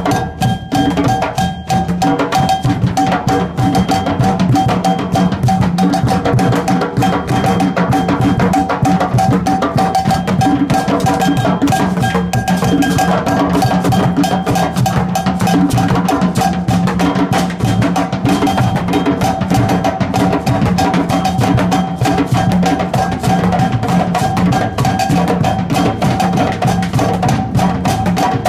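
Live band playing loud, drum-heavy music: fast, busy drumming on a drum kit over a steady held note.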